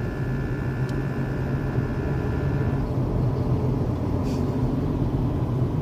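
Cabin noise of a 2016 Honda Civic on the move, with a low road-and-engine drone and a high, steady buzzing rattle from somewhere in the car that lasts fairly long and cuts off abruptly about three seconds in.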